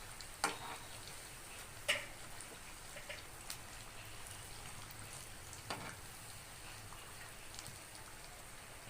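Batter-coated banana fritters deep-frying in hot oil, a steady crackling sizzle. A few short knocks, about half a second, two seconds and six seconds in, come from the spoon turning the fritters.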